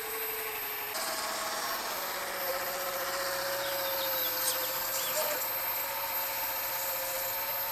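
Small RC boat outboard motor running steadily in forward gear, driving a 3D-printed plastic gear drivetrain, with a steady tone that steps up about a second in and rises slightly in pitch. A few faint bird chirps come in near the middle.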